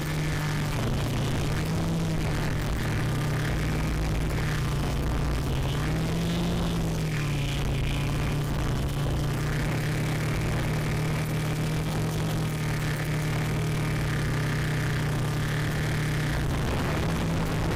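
Quadcopter's electric motors and propellers humming steadily, heard from the craft's onboard camera. The pitch briefly rises and falls with the throttle about six seconds in and shifts again near the end.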